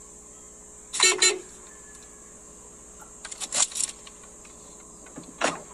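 A few sharp clacks and knocks from a car door being slammed and handled, the loudest about a second in with a short rattle after it, then smaller clicks around three and a half seconds in and again near the end.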